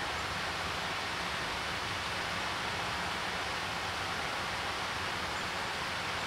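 Steady rushing of running water from a rocky stream, an even hiss at a constant level.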